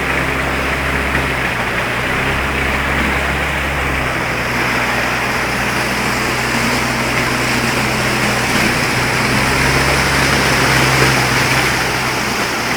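Steady rush of floodwater, with a low steady hum underneath.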